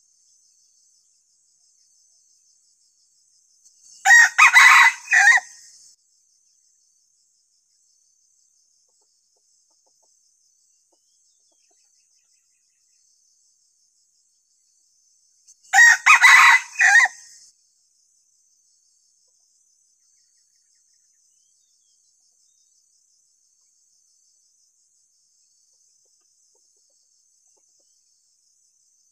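Red junglefowl decoy cock crowing twice, about twelve seconds apart, each crow short and broken into a few clipped parts. It is the crow used to provoke wild junglefowl. A faint, steady, high insect trill runs underneath.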